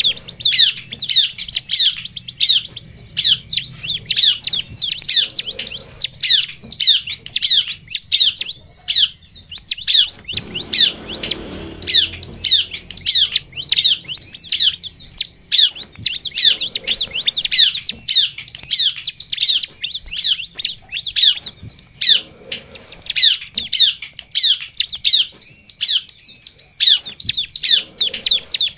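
Bar-winged prinia (ciblek) singing: fast runs of sharp, high, down-slurred chirps, one after another with short breaks between bursts.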